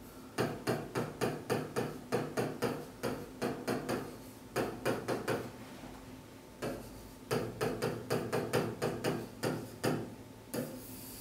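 A pen tapping and clicking against a display screen while words are handwritten on it: quick sharp taps, about four a second, in runs with short pauses between words.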